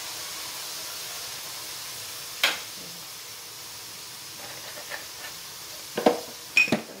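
Mushrooms sizzling in a hot aluminium pan just as fish sauce is spooned in: a steady frying hiss. It is broken by a sharp knock about two and a half seconds in and a few more knocks near the end.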